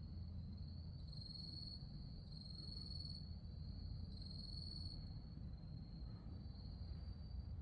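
Autumn grass insects, crickets, trilling: one steady high-pitched chirring that swells louder three times and eases off between, over a low steady rumble.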